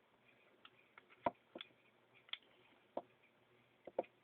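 A handful of faint, separate clicks and taps as small parts of a Stinger P311 spring airsoft pistol are handled and fitted back into its frame.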